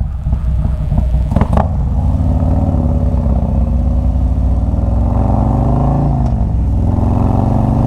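Harley-Davidson Road King's V-twin engine accelerating, its pitch climbing, dropping at a gear shift about six seconds in, then climbing again.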